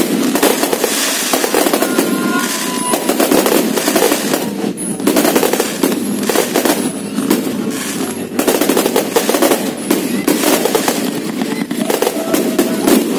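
Fireworks barrage: aerial shells bursting overhead in a rapid, unbroken string of bangs and crackles, too fast to count.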